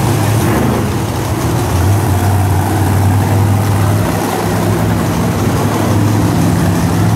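Monster truck engines running steadily at idle, a low engine note whose pitch shifts slightly a couple of times.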